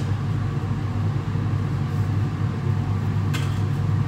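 Steady low hum of a commercial kitchen's range-hood extractor fan, with one brief click about three seconds in.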